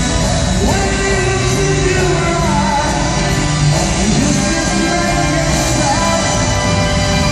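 Live rock band playing loudly, with a male lead vocal singing over it, recorded from within the audience in a large hall.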